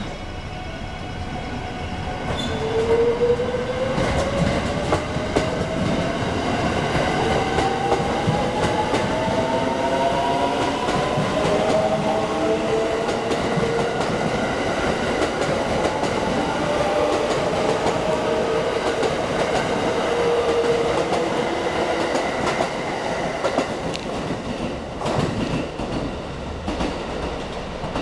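JR West 681 series electric train pulling away from a standstill: its traction motors give a whine of several tones that rises slowly in pitch as it accelerates, over the rumble and clatter of the wheels on the rails.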